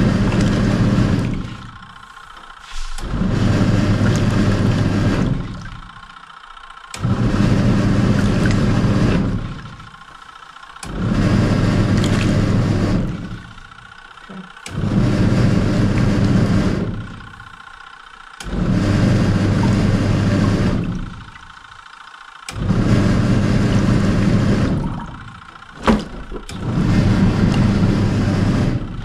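Samsung SW-655P twin-tub washing machine's wash motor driving its pulsator agitator on the heavy wash action, with the water and load churning. It runs in pulses of about two and a half seconds, each followed by a pause of about a second, repeating about eight times. A single sharp knock comes near the end.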